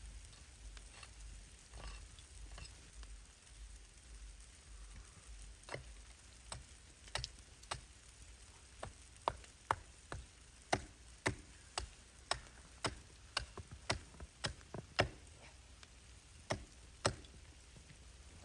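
A run of sharp, irregular ticks or taps, about two a second, starting about six seconds in and stopping shortly before the end, over a faint low rumble.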